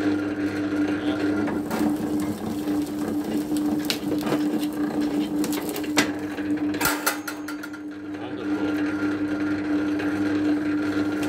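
Electric motor-driven cable-stripping machine running, its gear motor giving a steady hum. Cable is fed through the bladed rollers, with a few sharp clicks and a short rattle about six to seven seconds in.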